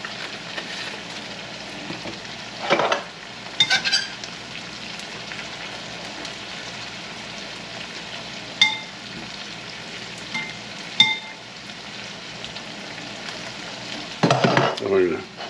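Catfish fillets frying in butter in a pan, a steady sizzling hiss. A few sharp ringing clinks of metal tongs against a ceramic bowl as the asparagus is tossed.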